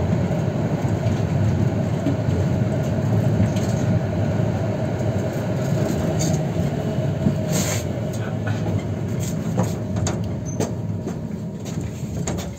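Konstal 105Na tram running on the rails with a steady rumble and scattered sharp clicks in the second half, getting quieter over the last few seconds as it slows.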